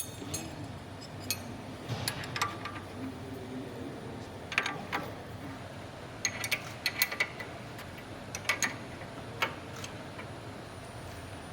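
Scattered sharp metallic clicks and taps from hand tools and fasteners as the nuts are fitted onto the track control arm bolts and snugged up without preload, with a quick run of about five clicks in the middle.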